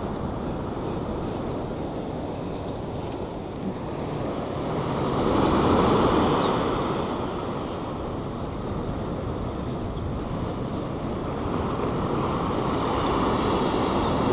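Ocean surf breaking and washing up the beach, with wind buffeting the microphone. One wave swells noticeably louder about five to seven seconds in.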